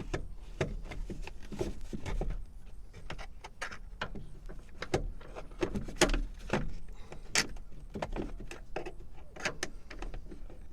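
Seatbelt retractor being worked by hand into its mounting spot, with its lip fitted into place: an irregular run of clicks and light knocks from metal and plastic parts being handled.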